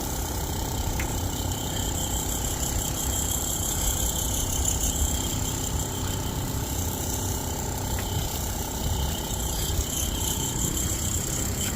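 Rooftop HVAC unit running: a steady mechanical hum with a low rumble and a constant high whine.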